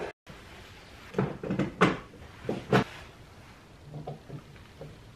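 Car door internals being handled and fitted: a run of sharp knocks and clatters of the door skin and panel parts going into place, the loudest in the first three seconds and softer ones after.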